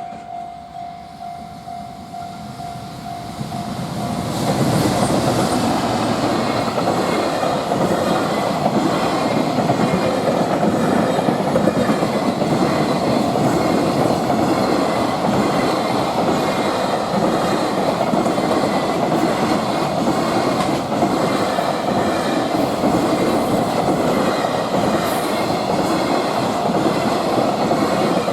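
A freight train passing close by: about four seconds in, the loud rumble and clatter of its wagons' wheels over the rail joints sets in and keeps going. Before that, a steady ringing tone is heard.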